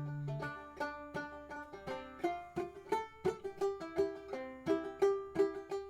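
Instrumental folk music: plucked string instruments picking out the sea-shanty tune in a steady rhythm, with a held low note fading in the first half-second.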